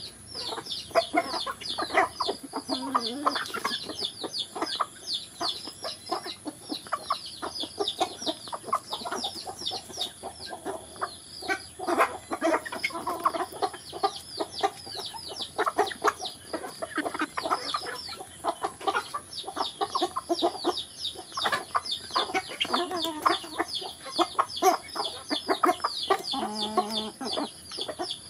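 A flock of chickens pecking at feed: a constant stream of high, falling peeps with short clucks and calls in between, and sharp taps of beaks on the ground. Near the end comes one short, low, drawn-out call.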